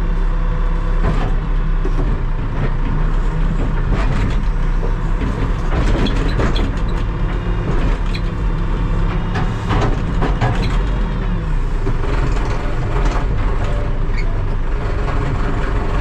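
Terex TLB-815 backhoe loader's diesel engine running steadily, with scattered clanks and knocks from the machine working.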